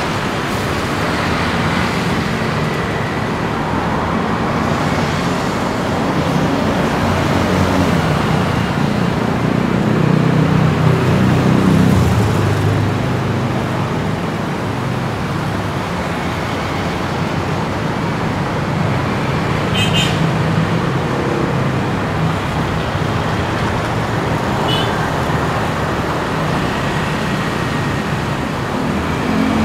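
Steady city road traffic, with engines passing close and rising loudest around ten to twelve seconds in. Two short high-pitched sounds come about twenty and twenty-five seconds in.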